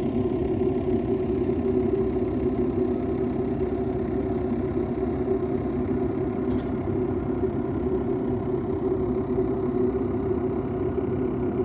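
Car running steadily: a constant engine hum and low rumble.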